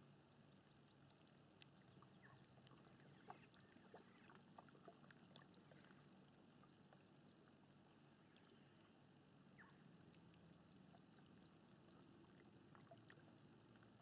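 Very faint calm water: soft, irregular small drips and plinks of gently lapping water, over a low steady hum.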